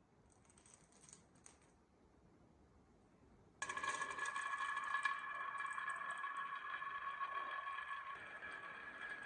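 Marbles rolling along a marble run: a few faint light clicks, then about three and a half seconds in a sudden steady rolling rattle with a ringing hum that slowly fades.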